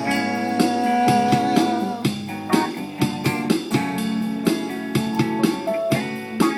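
Instrumental break of a song: guitar picking out notes over a steady beat, with no singing.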